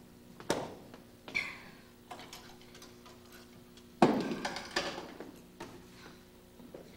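A few scattered knocks and thumps, the loudest a sharp hit about four seconds in, over a steady low hum.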